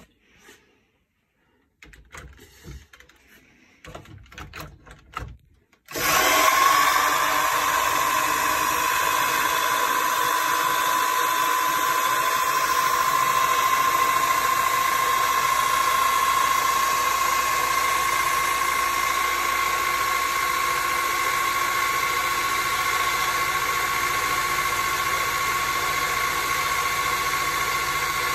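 A few faint handling clicks, then about six seconds in an electric drill starts abruptly and runs steadily with a high whine, spinning a freshly repaired Bosch 70 W motorcycle dynamo on a bench test.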